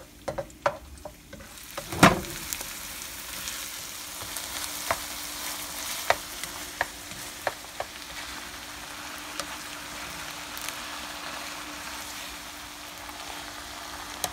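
Shredded vegetables stir-frying in a nonstick wok, a steady sizzle as a spatula tosses them and knocks against the pan. There are a few clicks at the start, a loud knock about two seconds in, then occasional single clicks over the sizzle.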